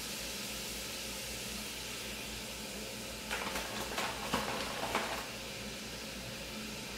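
Water and brown sugar simmering in a small nonstick pan over a low gas flame, a steady faint sizzle as the brown sugar syrup starts to cook. A few short clicks and scrapes come about three to five seconds in.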